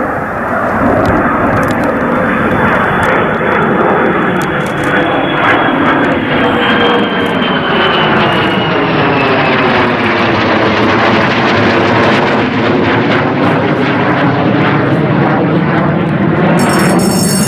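Dutch F-35A Lightning II fighter jet's single turbofan engine running loud on a low go-around pass, its whine falling in pitch as it passes, the roar holding on as it climbs away.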